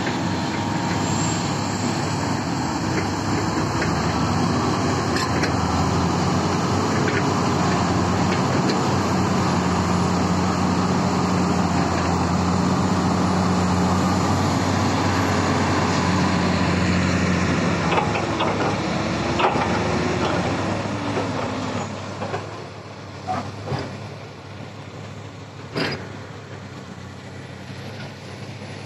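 Heavy dump truck's diesel engine running loud and steady, easing off and fading after about 18 seconds. A quieter diesel machine then runs on beneath a few sharp metallic clanks.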